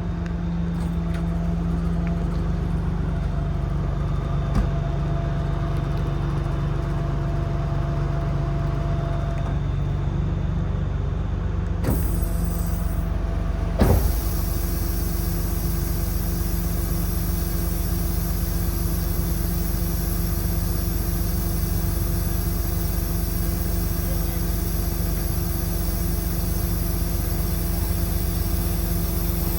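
Cummins 8.3 diesel of a service truck running steadily while driving the crane's hydraulics, a continuous mechanical hum. About twelve seconds in a hiss joins it, and a sharp click at about fourteen seconds is followed by a changed steady hum as the crane function changes.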